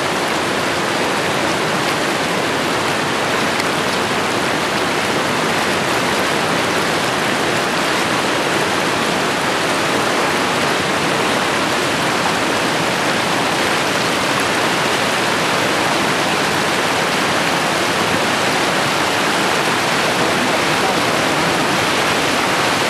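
Steady, even rushing noise with no separate sounds in it.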